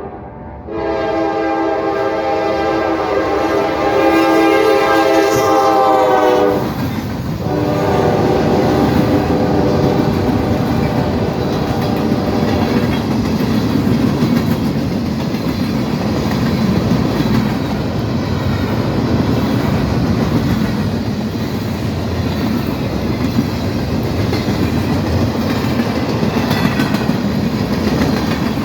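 Locomotive air horn sounding a long multi-note blast, a brief break, then a second blast that fades away. A fast train then rolls past with steady rumbling and wheels clacking over the rail joints.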